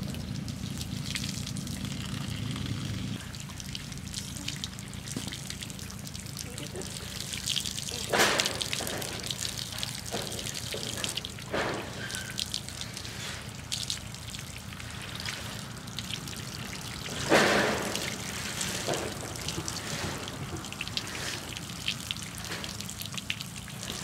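Water from a garden hose trickling and dripping off a wet miniature horse onto paving stones during its bath, over a low steady hum. Two short louder bursts stand out, about a third of the way in and again about three quarters through.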